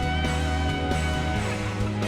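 Background music led by guitar, with a chord change about a second and a half in.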